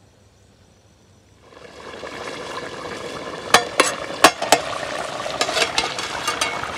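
Chicken curry bubbling and sizzling in a covered kadai, starting about a second and a half in, with a series of sharp metallic clinks around the middle as the steel lid and a ladle knock against the pan.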